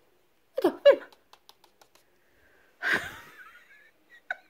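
A woman laughing: a short voiced burst about half a second in, a wheezy breathy laugh about three seconds in, then quick short 'ha' pulses starting near the end.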